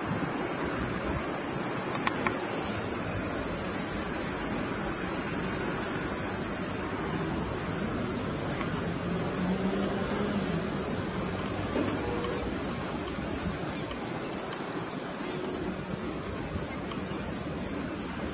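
Distant diesel freight train running, a low rumble under wind noise, with a faint engine tone in the middle. A steady high hiss becomes a fast, even pulsing, about two and a half beats a second, about seven seconds in.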